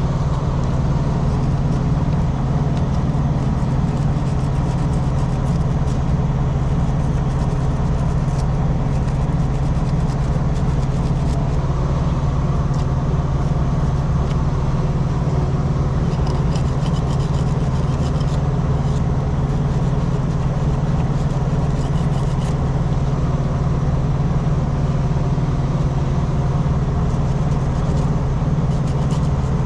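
Truck engine idling with a steady low hum, with faint clicks and scrapes of hand work over it now and then.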